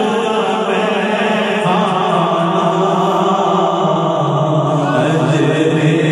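A man's solo voice chanting a naat, an Urdu devotional poem in praise of the Prophet, in long drawn-out notes; about four seconds in the melody steps down to a lower held note.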